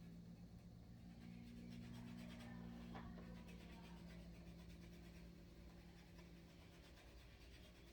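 Faint scratching of a marker being stroked over a plastic toy gun, over a low steady hum.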